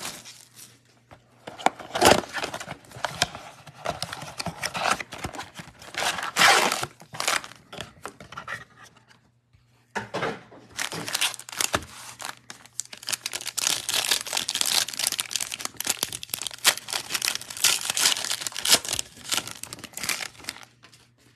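Foil wrappers of Panini Absolute Football trading-card packs crinkling and being torn open by hand, in bursts, with a short lull about halfway through.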